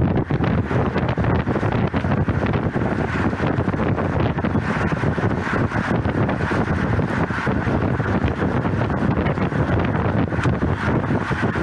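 Steady wind buffeting the microphone of a bike-mounted camera on a road bike moving at about 25 mph.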